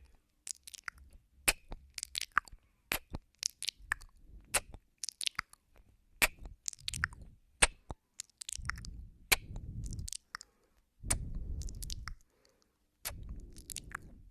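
Close-up ASMR mouth sounds on a binaural microphone: wet clicks and smacks of ear nibbling and kissing, coming irregularly several times a second. In the second half, three breaths of about a second each blow onto the microphone.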